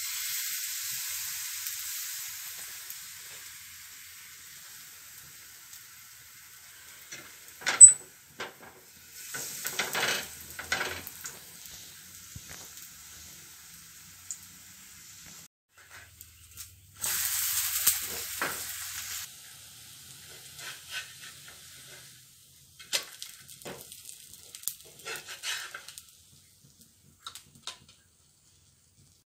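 Sweet uthappam batter sizzling as it is ladled into hot oil on a pan, the sizzle fading over several seconds. A sharp click and some scraping of utensils on the pan follow, then a second burst of sizzling about seventeen seconds in, and more light clicks.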